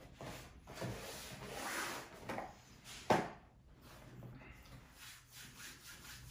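Cardboard takeaway food box handled and moved about on a table: scraping and rubbing sounds, with one sharp knock about three seconds in as it is set down.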